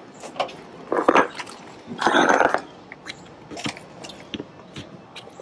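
Handling noise from a white water hose being pulled along and its end fitting threaded onto an RV's city water inlet: short scraping, crunching rustles, the two biggest about one and two seconds in, with a few light clicks.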